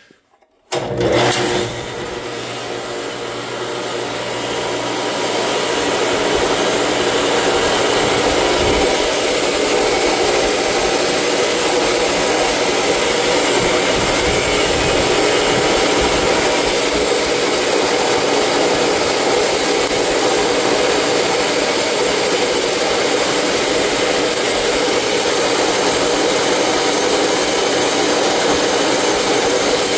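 A metal cutoff saw's 5 hp Baldor three-phase motor, powered from single-phase through a Vevor digital phase shifter, starts about a second in and spins up over several seconds. It then runs steadily with a constant hum and whir.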